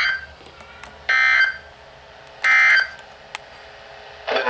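Emergency Alert System end-of-message (EOM) data tones: three short, buzzy bursts of digital signalling about a second apart, marking the end of the alert. Another sound starts just at the end.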